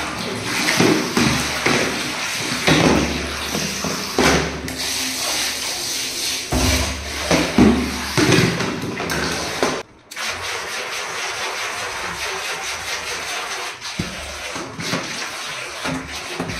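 Small electric motor of a toy RC speedboat whirring, its propeller churning and splashing water in a bathtub. The sound drops out briefly about ten seconds in.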